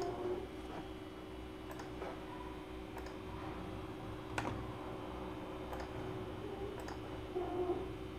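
Sparse, faint clicks of a computer mouse and keyboard being used, with one sharper click about four seconds in, over a steady low hum.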